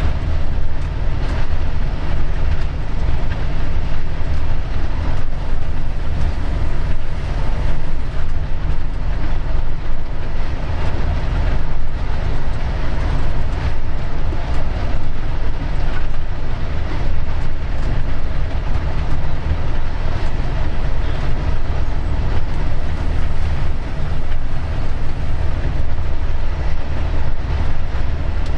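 Diesel locomotive under way, heard from its cab: a steady low engine drone mixed with the rolling noise of the wheels on the rails.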